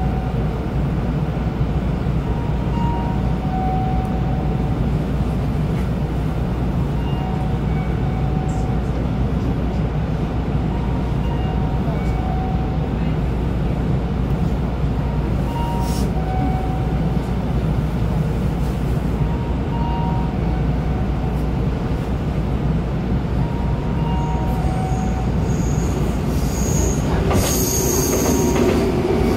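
Nankai 8300-series electric train standing at a station platform with a steady low electrical hum, while a two-tone electronic chime repeats every second or two. Near the end a rumble with a high metallic squeal builds, from train wheels on the rails.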